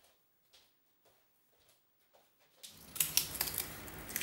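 Near silence for about two and a half seconds, then crisp crackling and clicking as a stiff sheet of leaf gelatin is handled over a ceramic bowl.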